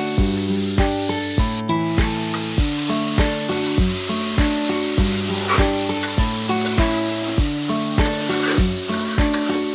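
Bitter gourd frying in a pan with a steady sizzle, under background music with a regular beat.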